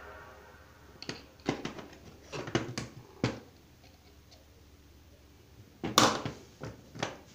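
Screwdrivers clicking and clattering against a plastic screwdriver-set case as a hand picks through it: a run of sharp clicks over the first three seconds, a pause, then a loud knock about six seconds in and a couple of lighter clicks.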